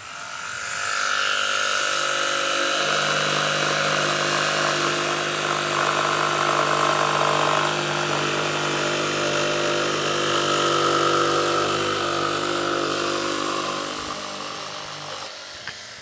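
Milwaukee M12 FUEL cordless jig saw with a brushless motor, its blade stroking as it runs and cuts. It winds up at the start, runs steadily, then fades and stops near the end.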